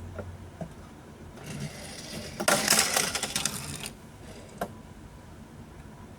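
Die-cast toy car rattling along a plastic toy track in a dense run of rapid clicks that lasts about a second and a half, followed by one lone click.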